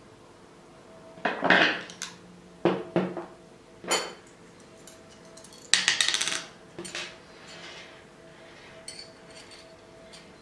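Steel angle brackets and bolt hardware clinking and rattling as they are handled and fitted together by hand, in several short bursts, loudest about a second and a half in and again near six seconds.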